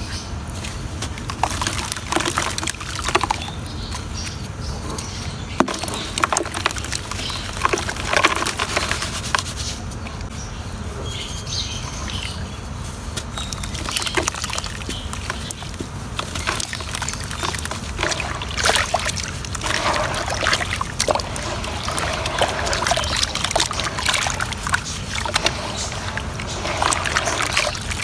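Big chunks of pure cement being crumbled in water: a continual run of small crackles and sharp cracks over sloshing and trickling water, with a steady low hum underneath.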